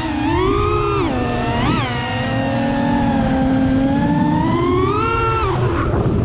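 FPV quadcopter's brushless motors and propellers whining, the pitch rising and falling with the throttle: a climb about half a second in, a brief sharp spike near two seconds, a steady stretch, another rise around five seconds and a drop near the end. A steady low rush of wind noise runs underneath.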